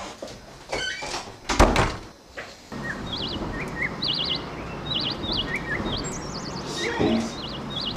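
Two sharp knocks in the first two seconds, then a steady outdoor hiss comes in with small birds chirping in quick, repeated warbling trills.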